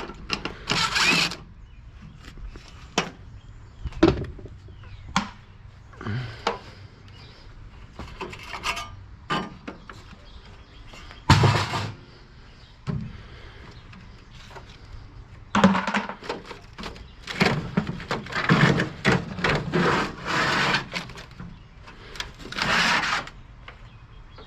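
Irregular knocks and clunks of hand work on metal and equipment, mixed with short scraping noises. The sharpest knock comes about eleven seconds in, and the sounds come thicker from about fifteen to twenty-one seconds.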